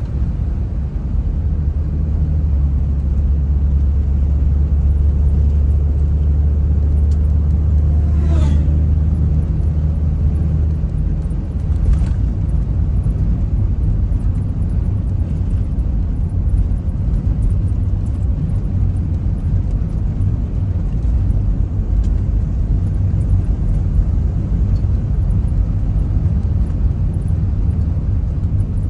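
A car driving on a paved road, heard from inside the cabin: a steady low drone of engine and tyre noise. The engine's steady hum changes about eleven seconds in, and there is a brief sweeping chirp and a single click just before then.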